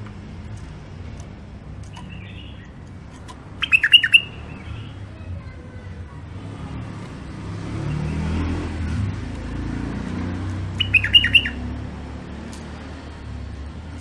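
White-eared bulbul calling in two short bursts of rapid, chirping notes, about four seconds in and again about eleven seconds in. A low rumble swells and fades between them.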